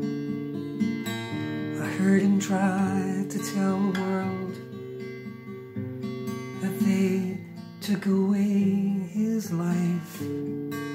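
Acoustic guitar strummed steadily, with a man's singing voice over it in two phrases, from about two seconds in and again from about seven seconds in.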